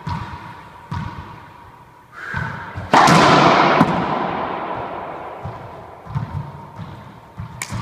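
Racquetball bounced on the hardwood court floor twice, then a hard hit about three seconds in: a loud crack that echoes through the enclosed court and fades over about two seconds. Softer thuds and knocks follow near the end.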